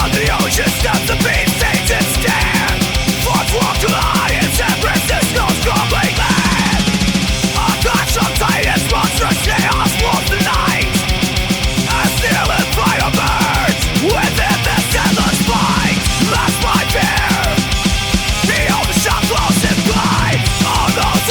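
Loud, fast heavy rock instrumental with a driving beat and no singing.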